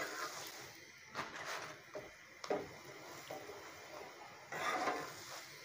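Metal spatula lightly scraping and tapping a ghee-brushed paratha on an iron tawa, a few short strokes over a faint frying hiss. A brief voice-like sound near the end.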